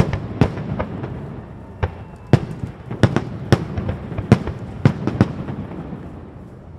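Fireworks display shells bursting in a string of sharp bangs, about ten in the first five seconds, over a steady background of noise. The bangs stop near the end, leaving a short lull.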